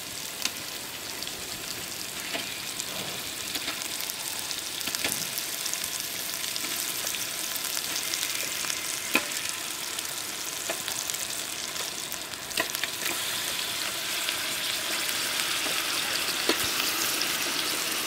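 Tomato-onion masala sizzling in hot oil in a metal pot as marinated raw chicken pieces are dropped in by hand, with a scattering of short knocks and clicks along the way.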